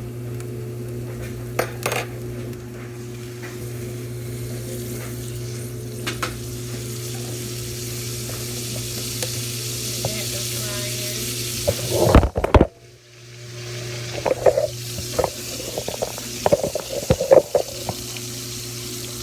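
Thick-sliced ham frying in bacon grease in a pan, a steady sizzle over a low steady hum. About twelve seconds in there is a loud crash as the camera falls over, then a moment of near silence and a run of knocks and clatter before the sizzle returns.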